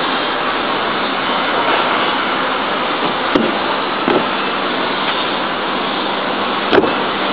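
A steady, loud rushing noise with a few sharp knocks: about three and a half seconds in, again about four seconds in, and a louder one near the end.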